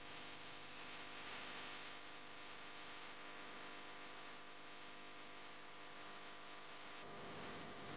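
Quiet, steady electrical hum over a faint hiss, with no distinct event: kitchen room tone.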